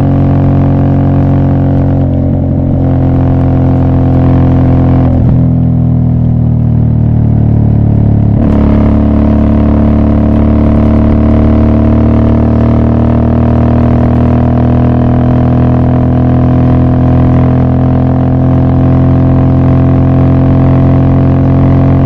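Aprilia Shiver's V-twin engine running under way with a loud, steady drone. Its note breaks briefly about 2, 5 and 8 seconds in, falls between the second and third break, and rises slowly after the last.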